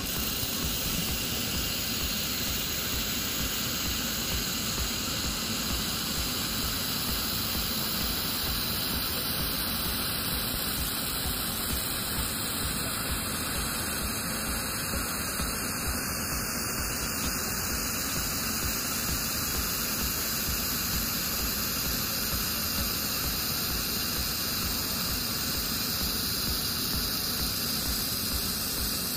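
Laser welder running a weld with filler wire on a steel T-joint: a steady, unbroken hiss.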